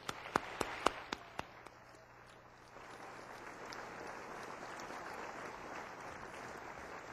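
Audience applause: a few sharp single claps at first, then after a short lull the crowd's clapping settles into a steady, even wash.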